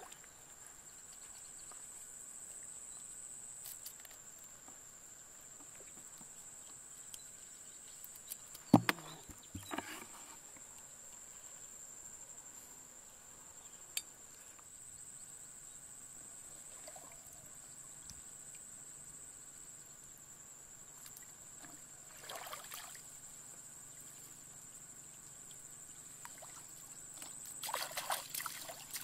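Insects droning with a steady high-pitched tone, with a sharp knock about nine seconds in, a few small splashes, and water sloshing near the end as hands work in shallow muddy water.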